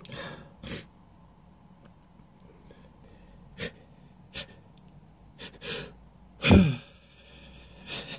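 A person sneezing: short sharp breaths and gasps, then one loud sneeze with a falling voiced cry about six and a half seconds in.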